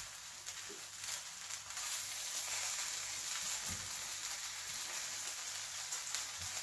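King prawn fried rice sizzling in a hot metal pan as a spoon stirs and scrapes through it, with a few sharp clicks of the spoon against the pan.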